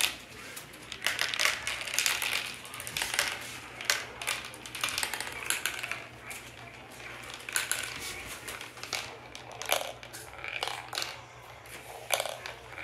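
Marbles rolling through a plastic marble run, clicking and rattling against the plastic track in quick, uneven bursts.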